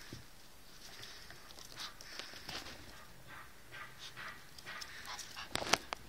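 Yorkshire Terrier and a Kleinspitz–Jack Russell cross play-fighting: scattered short, soft scuffling sounds, with a few sharper clicks near the end.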